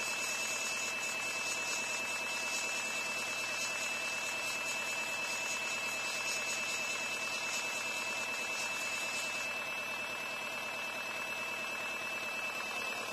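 Small Tamiya Spray-Work airbrush compressor running with a steady hum and a high whine, while air and paint hiss from the airbrush as it sprays; the hiss stops about nine and a half seconds in when the trigger is released, leaving the compressor running on its own.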